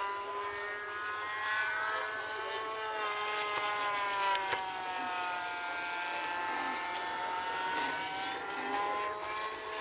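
Electric motor and propeller of a large foam RC Cessna 182 model airplane in flight: a steady whine whose pitch slowly sinks through the middle and rises again near the end as the plane flies past and the throttle changes.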